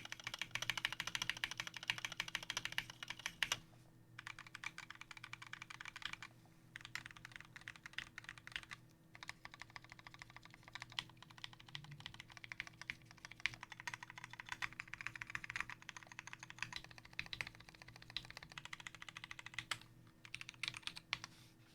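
Fast typing on a custom 60% mechanical keyboard with lubed and filmed Durock Koala tactile switches, a brass plate and Tai-Hao PBT keycaps: dense runs of keystrokes broken by a few short pauses.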